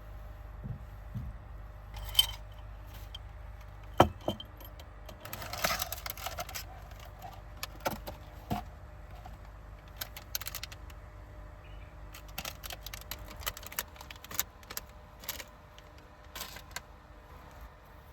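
Small hard objects being handled: scattered light clicks, taps and clinks, with a brief rustle about six seconds in, over a low steady hum.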